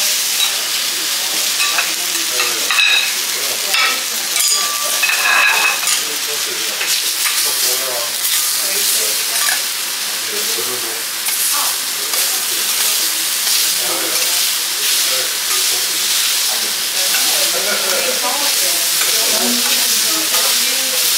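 Pineapple wedges sizzling steadily on a hot steel teppanyaki griddle, with a few short metallic clinks from the chef's spatula and knife in the first few seconds.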